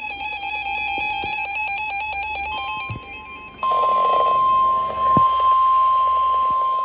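Electronic alert tones between two broadcast warnings: a fast warbling pattern of quickly alternating tones, then a single steady, loud alert tone just above 1 kHz from about three seconds in. The steady tone is the NOAA Weather Radio warning alarm tone that precedes a new weather warning.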